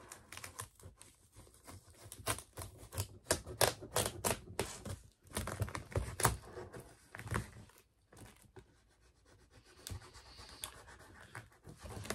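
Knife cutting the packing tape along a cardboard box's seams: an irregular run of scratching, scraping strokes of the blade on tape and cardboard, with brief pauses about five seconds in and again around eight to nine seconds in.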